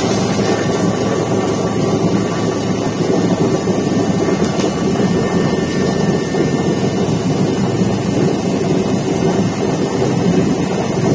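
Helicopter cabin noise in flight: a loud, steady drone of engine and rotor with a faint constant hum in it, unchanging throughout.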